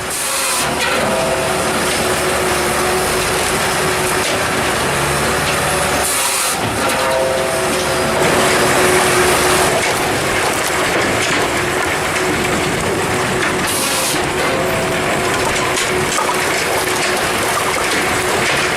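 Bell 8000 firewood processor working: steady machine noise from its engine and hydraulics as logs are cut and split.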